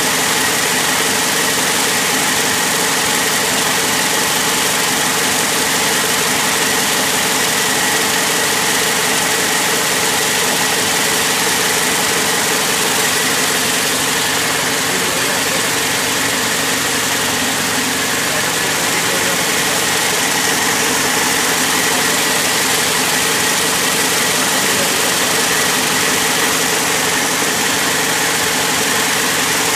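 High-speed braiding machines running: their bobbin carriers circling give a loud, even mechanical din with a constant hum running through it.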